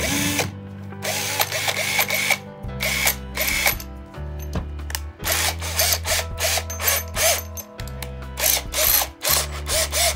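Parkside 20 V cordless drill driver spinning a drill bit in the air in many short bursts of the trigger, each under a second, set to its hammer-action drilling mode.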